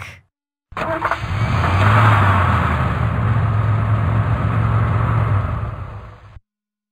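A truck engine running, a steady low hum under road hiss. It starts suddenly under a second in, swells, then fades and cuts off shortly before the end.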